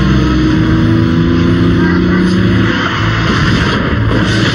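Car engine running at speed with road noise, its steady note fading out about three seconds in.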